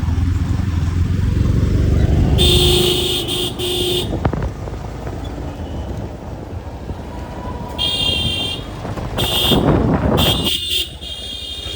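Road traffic with engines running and vehicle horns honking: one long honk a few seconds in, then several short toots near the end, while a vehicle passes close.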